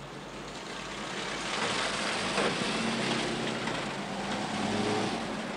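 A motor vehicle's engine and road noise, swelling about a second and a half in and easing off near the end.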